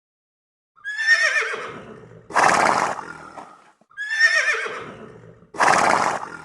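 An animal call heard twice in identical form: a quavering cry that falls in pitch, followed straight away by a short, harsh, noisy blast.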